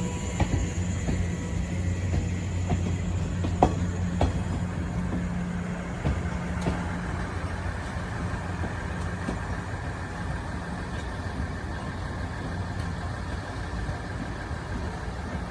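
JR 415 series electric commuter train moving slowly past, with a steady low hum and a few sharp wheel clicks over rail joints in the first few seconds; the hum fades about halfway as the train draws away.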